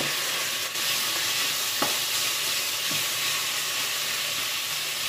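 Carrots and onions sizzling in a pot as a wooden spoon stirs them, a steady hiss with a few light clicks.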